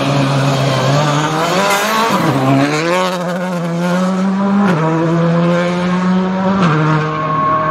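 Škoda Fabia R5 rally car's turbocharged four-cylinder engine running hard as the car passes at speed and drives away. Its note dips and then climbs about two seconds in, then steps down in pitch twice.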